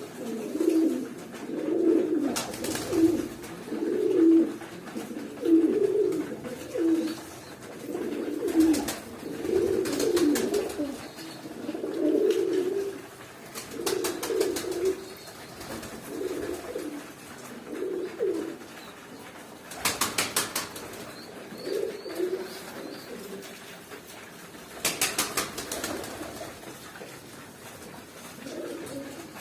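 Domestic pigeons cooing over and over in low, throaty phrases. A few short bursts of rapid clattering break in now and then.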